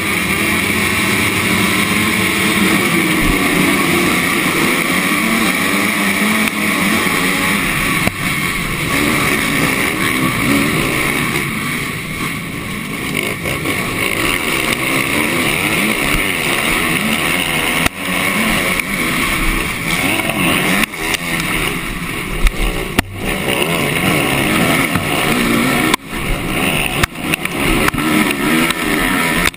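Motocross bike engine running hard at high revs, heard close up from a camera on the bike, with other dirt bikes racing alongside. From about 18 seconds in, the throttle is repeatedly chopped and reopened, with sudden drops in the engine sound and sharp knocks.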